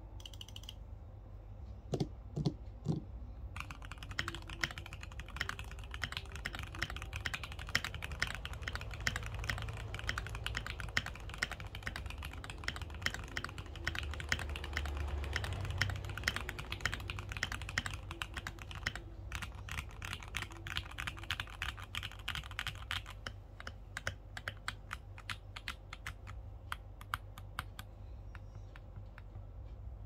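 Keychron Q2 mechanical keyboard with Gateron Oil King linear switches, an aluminium plate, foam dampening and ASA-profile keycaps, typed on quickly: a few separate key presses, then a dense run of keystroke clacks with a short pause about two-thirds of the way in. The keystrokes thin out near the end.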